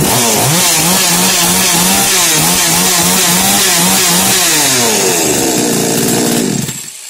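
TexAC TA-03053 two-stroke chainsaw engine running fast on its latched start throttle just after starting, the throttle latch now holding; its pitch wavers, then it slows and drops away near the end.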